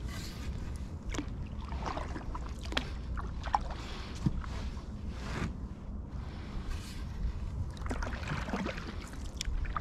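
Canoe being paddled: paddle strokes swishing and dripping in calm water, with a few short, sharp knocks a few seconds in.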